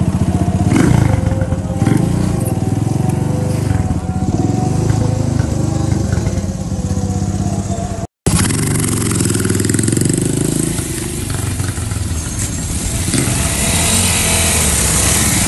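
Restored Honda CB100-style motorcycle engine running steadily as the bike is ridden. About eight seconds in the sound drops out for a moment and picks up again as a noisier mix of motorcycle engine and street traffic.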